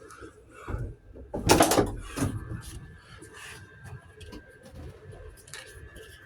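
Door of a 1988 Ford F250 pickup being opened: one loud latch-and-hinge sound about a second and a half in, followed by faint scattered handling noises.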